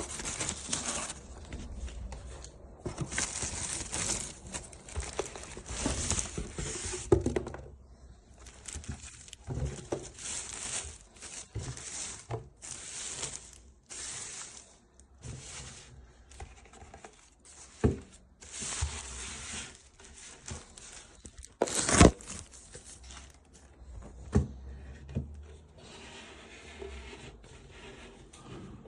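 Paper or plastic packaging being handled, with on-and-off tearing and crinkling and a few sharp knocks, the loudest about two-thirds of the way through.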